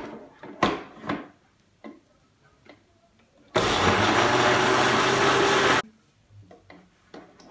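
A couple of loud clunks as the blender jar is seated on its motor base, then a Panasonic juicer-blender runs for about two seconds, blending bananas, milk and almond powder, and cuts off abruptly.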